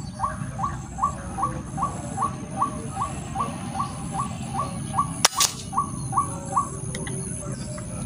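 A bird calling, a short note with an upward hook repeated about two and a half times a second, stopping about six and a half seconds in; a single sharp crack a little after five seconds. Wind rumbles on the microphone throughout.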